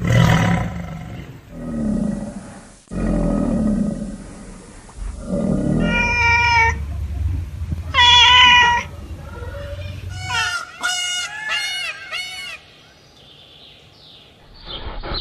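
A sequence of wild animal calls: several low growling roars in the first half, then louder, higher-pitched calls, ending in a quick run of short rising-and-falling cries.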